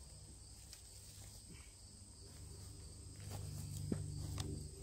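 Footsteps on dry leaves and twigs as a person stands up and walks off, with a few light snaps and a closer low rustle between about three seconds in and near the end. A steady high drone of insects runs underneath.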